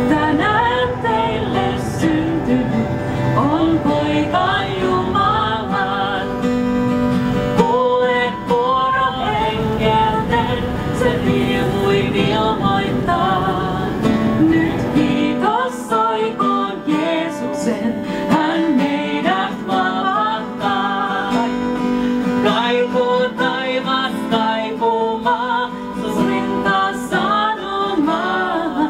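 Acoustic guitar playing while a voice sings into a microphone, a live song.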